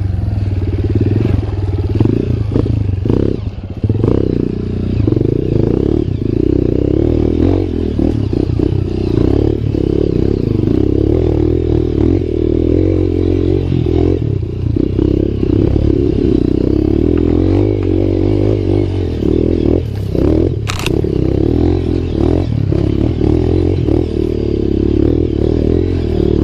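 Dirt bike engine running continuously under load on a rough trail, with knocks and clatter from the bike over uneven ground and one sharp knock late on.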